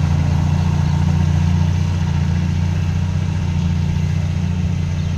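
Diesel engine of a ten-wheel dump truck running steadily at low revs as the truck moves off slowly over a dirt track.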